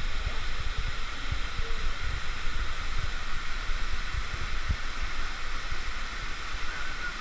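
Steady rush of a waterfall pouring into its plunge pool, with irregular low rumbles underneath.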